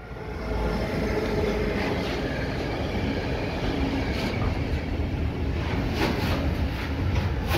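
Container freight train passing close behind Metrans electric locomotive 386 026-9: a loud steady rumble of the locomotive and wagons rolling by. Wheels clack over the rail joints a few times in the second half.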